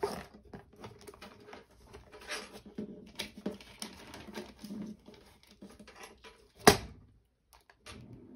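Hands handling and squeezing a crocheted yarn piece: soft rustling and light clicks throughout, with one sharp tap a little over two-thirds of the way through.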